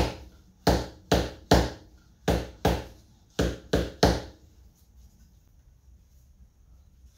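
Showa fork leg from a Buell XB12S Lightning worked as a slide hammer against a homemade PVC-pipe seal driver, driving a new oil seal into the upper fork tube. About nine sharp knocks come in quick succession and stop about four seconds in, once the seal is seated.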